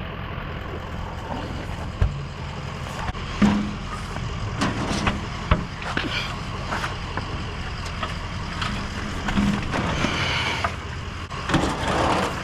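A vehicle engine idling steadily, with scattered knocks and clunks as scrap is loaded onto the truck.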